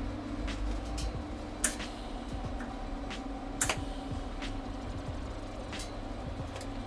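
Steady electrical hum of an arc welder while a stainless steel exhaust pipe is welded, with a few sharp clicks, two of them loud about one and a half and three and a half seconds in.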